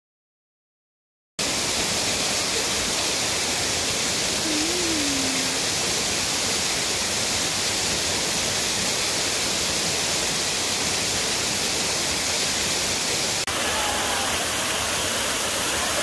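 Waterfall cascading over rocks: a steady rush of falling water that starts abruptly about a second and a half in.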